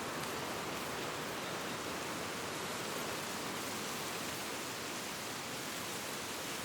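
Wind blowing steadily through autumn trees, rustling the leaves in an even hiss.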